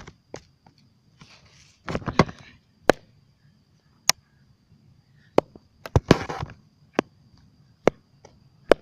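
A chalk-filled cloth ball slapping down repeatedly on a concrete driveway: a dozen or so sharp, irregular slaps and knocks, with a few brief scuffs.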